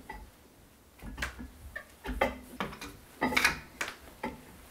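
Steel inner cylinder of a Sandvik RH460 DTH hammer being drawn out of the piston case by hand, giving a series of light metallic clinks and knocks. The loudest come about three and a half seconds in.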